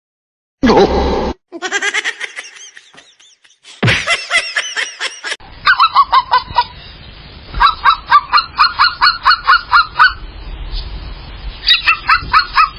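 A bird honking: a fast, repeated series of calls, about five or six a second at its quickest, after a few short, differing bursts of sound.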